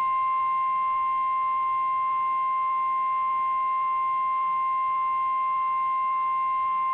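NOAA Weather Radio warning alarm tone: one steady, high single tone at about 1050 Hz, heard through a weather radio receiver. It is the signal that a warning message is about to be broadcast.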